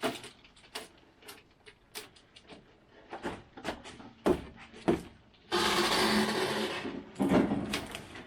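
Scattered knocks and clatter of sawmill parts and packing being handled, with a loud sliding scrape about five and a half seconds in lasting a second and a half, then more knocks.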